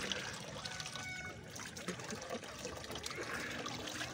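Running water as canna tubers are washed by hand to rinse the soil off them.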